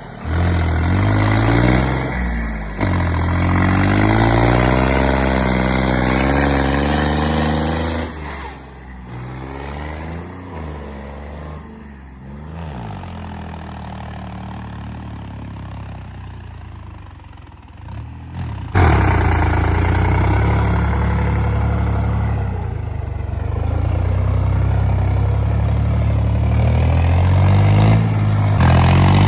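Tractor diesel engine working hard to pull the bogged-down tractor through mud, its speed rising and falling for the first several seconds. The engine drops back to a quieter running sound about eight seconds in, then comes back loud and steady about nineteen seconds in.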